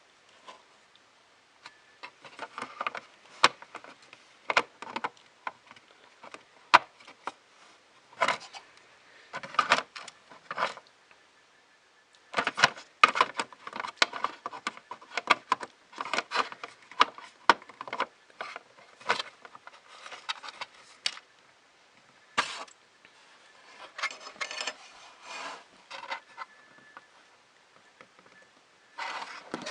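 Small plastic and metal parts of a 3D printer kit being handled and fitted: irregular clicks, taps and short scraping rubs in clusters, with brief pauses between.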